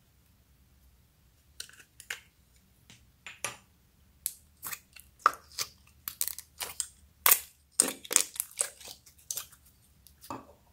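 Yellow slime being squeezed by hand out of a flexible plastic mould: a run of irregular squishy pops and crackles, starting about a second and a half in and coming thickest in the second half.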